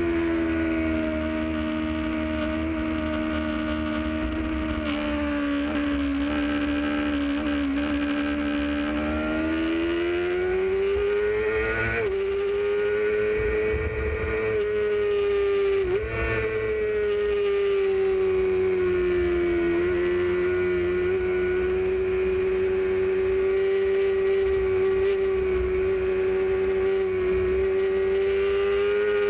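Motorcycle engine running at high revs while riding, a steady pitched note that sags slightly, then climbs about ten seconds in, with two quick dips in pitch near twelve and sixteen seconds. A low wind rumble runs under it.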